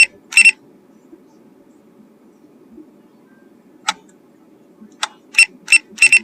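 Short, high electronic beeps and clicks, about nine in all: two at the very start, then a quick run of them in the last two seconds. They fit the button and dial beeps of a drone's remote controller. A faint low hum lies underneath.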